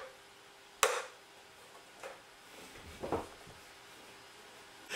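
A quiet room with one sharp tap about a second in, and a couple of faint soft sounds near three seconds.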